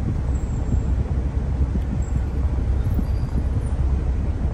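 Car air conditioning blowing cold air hard out of the dashboard vent, a steady rush over the idling engine's low hum, heard inside the cabin. The compressor has just been repaired and is cooling again.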